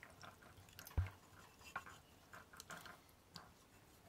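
Silicone-coated whisk stirring a thin liquid sauce in a ceramic bowl: faint swishing and light clicks, with one sharper knock about a second in.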